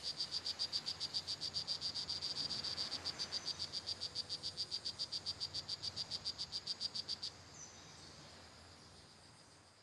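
A frog calling: a fast, even series of high pulses, about seven a second, that stops abruptly about seven seconds in. Faint forest background noise follows and fades away.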